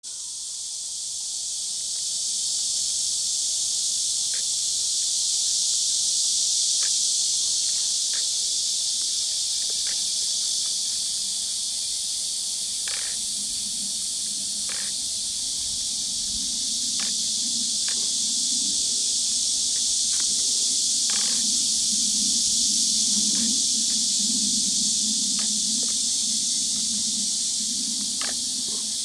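Steady high-pitched hiss of an insect chorus, with scattered faint clicks; a low hum joins about halfway through.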